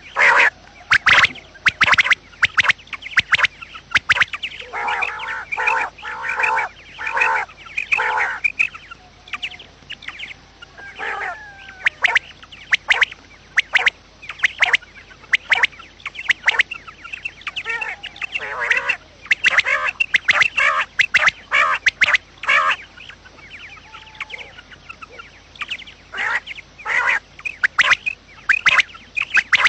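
Quails (batair) calling continuously: a dense, irregular run of short, sharp notes, with a few lower, burbling call groups mixed in.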